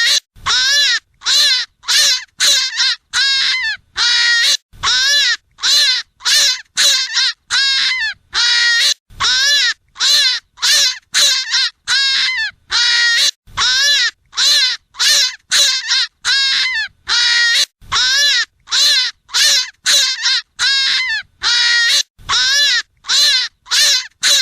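Rabbit hunting call: a harsh, squealing animal cry repeated about twice a second. Each cry rises and then falls in pitch.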